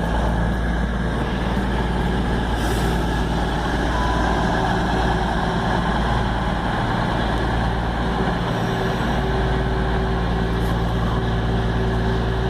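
Class 220 Voyager diesel-electric multiple unit standing at a platform, its underfloor diesel engines idling with a steady low hum. A brief hiss of air is heard about three seconds in.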